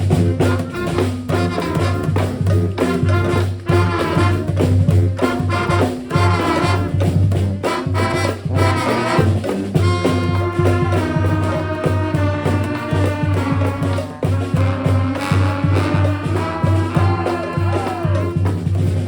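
Live street brass band playing: several horns in held and moving notes over a steady low beat of bass drum and bass line.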